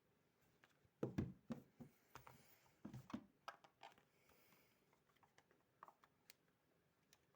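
Near silence broken by short clicks and knocks, most of them bunched between about one and four seconds in, as when a small handheld device is handled; there is no ringing.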